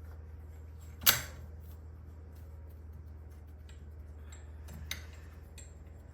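Metal hardware being handled: one loud sharp clank with a short ring about a second in, a lighter knock near the end, and a few faint ticks, over a steady low hum.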